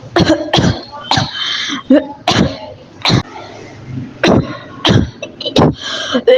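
A person coughing in a long fit: about ten sharp, harsh coughs in irregular succession, roughly one every half second to a second.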